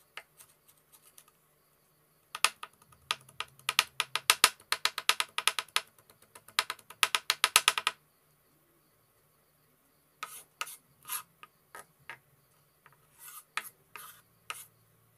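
Kitchen knife mincing garlic on a wooden cutting board: a fast run of sharp knocks of the blade on the board for about five seconds, a pause of about two seconds, then a few scattered knocks near the end.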